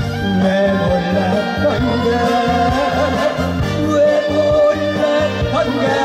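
A man singing into a microphone over instrumental backing music, a held, wavering melody line over a steady accompaniment.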